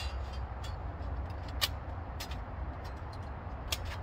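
Metal panels of a folding Onetigris camp stove clicking and clinking as they are slotted together, a few sharp clicks with the strongest about a second and a half in and near the end, over a steady low rumble.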